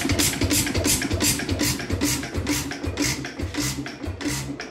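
A 1930s Bamford air-cooled single-cylinder hit-and-miss stationary engine running with a rapid, regular beat of about five strokes a second. The beat slows and gets quieter over the last second or two.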